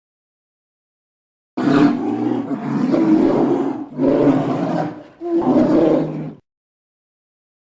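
Polar bear growling and roaring: about four rough, low roars run together over some five seconds, starting about a second and a half in and stopping abruptly.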